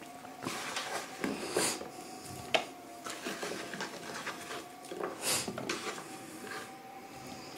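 Raw potato wedges gathered by hand off a plastic cutting board and dropped into a plastic bowl: soft knocks and rustling handling, with one sharp click about two and a half seconds in, over a faint steady hum.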